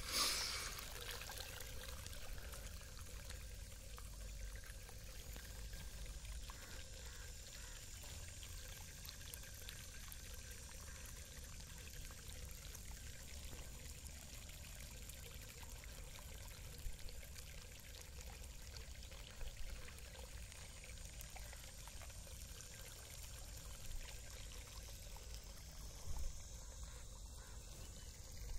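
Borewell water gushing from the end of a delivery pipe and pouring across muddy ground: a steady rush of splashing water, with one brief louder burst just after the start.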